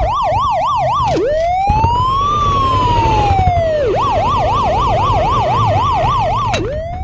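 Police siren switching between a fast yelp of about four rises a second and a slow wail that rises and falls once over nearly three seconds, then back to the fast yelp.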